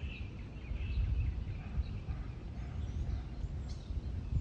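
Skateboard wheels rolling over rough, cracked asphalt: a steady low rumble that swells and fades unevenly, with faint bird chirps above it.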